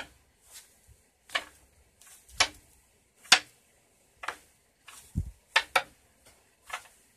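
Handling noise: a string of short taps and rustles, roughly one a second and unevenly spaced, as the phone and a cloth puppet brush against each other, with a low thump a little after five seconds in.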